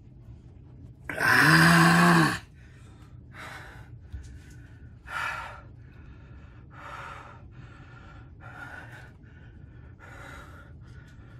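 A man lets out one loud, strained, voiced gasp about a second in, then breathes hard through his open mouth, one heavy breath roughly every second and a half. It is his reaction to the burn of extremely hot pepper jerky, with nausea: he feels he is about to vomit.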